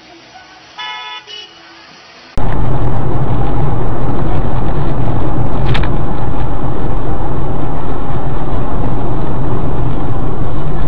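A car horn gives a short double toot about a second in. At about two and a half seconds the sound jumps abruptly to loud, distorted vehicle noise, steady with a heavy low end, with a sharp click near six seconds.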